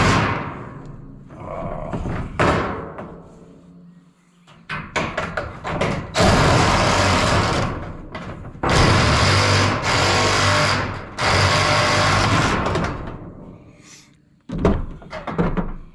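Cordless DeWalt drill with a sheet-metal cutting attachment cutting along a corrugated metal roofing panel. It comes in several loud stretches of cutting, the longest about two seconds, with knocks and rattles of the loose sheet between them.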